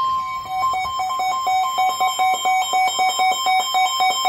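Weather alert radio sounding its warning alarm ahead of a tornado warning: a steady high tone, then from about half a second in a fast beeping that alternates between two pitches, about four beeps a second.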